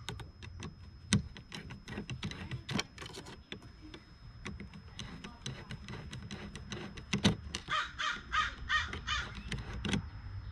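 Screwdriver working a hose clamp on an intake coupler, with scattered small metal clicks and taps. About three quarters of the way through comes the loudest part: a quick run of rasping sounds, about four a second, lasting around two seconds.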